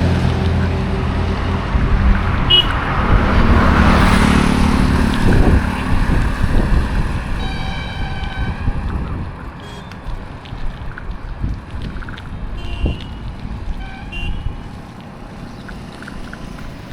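Auto rickshaw's small engine running close and passing by, loudest about four seconds in, then fading away into traffic noise. Vehicle horns honk several times, the longest honk around eight seconds in.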